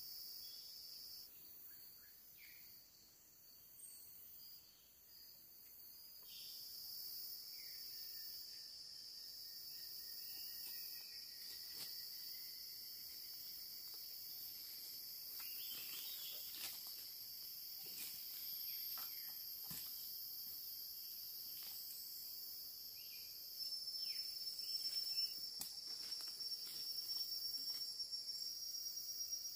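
Chorus of rainforest insects: a steady, high-pitched shrill in layers. Scattered soft clicks and rustles come through it, busier near the end.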